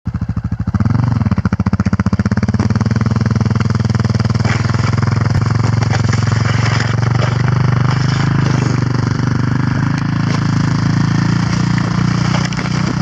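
Quad bike engine pulling a sled over snow. It rises in pitch about a second in, then runs steadily under load.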